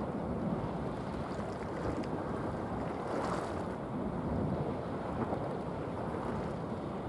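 Steady wind rumbling on the microphone over an outdoor waterside hiss, with a brief louder rush about three seconds in.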